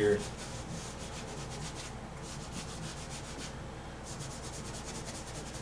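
Inexpensive brush scrubbing acrylic paint onto a canvas in quick, short strokes: a dry, scratchy rubbing that comes in three runs with two brief pauses.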